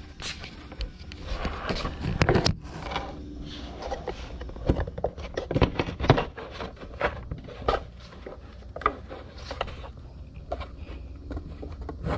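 A 3D-printed hard plastic armrest being handled: irregular clicks, knocks and scraping of the plastic, with louder knocks about two and six seconds in.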